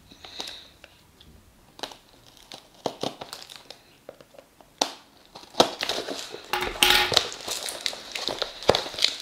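Tape-sealed cardboard mailing box being cut with scissors and torn open: sparse snips and clicks at first, then denser crinkling and tearing from about halfway, loudest near the end.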